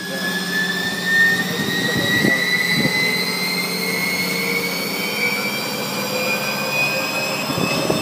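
Walk-behind planetary concrete floor grinder-polisher running on concrete with resin polishing pads: a steady motor hum under a high whine that slowly rises in pitch.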